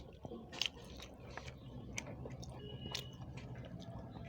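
A person chewing food close to the microphone, with many short, sharp mouth clicks and smacks, the loudest about half a second in.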